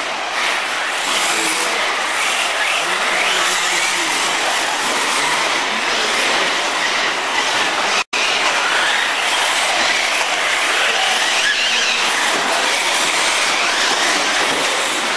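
Electric 1/8-scale brushless RC buggies racing on a dirt track: motor whines rising and falling over a steady hiss of tyres on loose dirt. The sound cuts out for an instant about eight seconds in.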